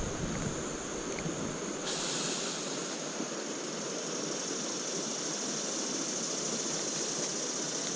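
Creek water running steadily over rocks, an even rushing hiss, briefly a little brighter about two seconds in.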